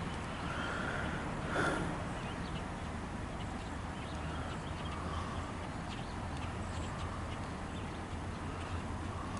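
A stationary MARC commuter train idling with a steady low hum, with a short sharp knock about a second and a half in and faint short calls every second or two.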